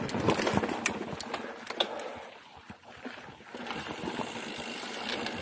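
Mountain bike rolling down a dirt trail: tyre and wind noise with frequent sharp clicks and rattles from the bike over the first two seconds. The noise drops away briefly in the middle, then the rolling noise returns.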